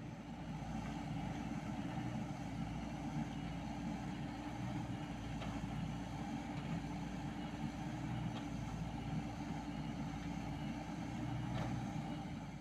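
Komatsu mini excavator's diesel engine running steadily while the machine digs, with a few faint clicks.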